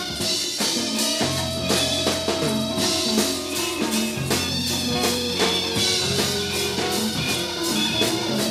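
1974 studio recording of a jazz ensemble playing, heard from a cassette dub of the reel-to-reel master: a drum kit keeps up regular strokes over held bass and mid-range notes.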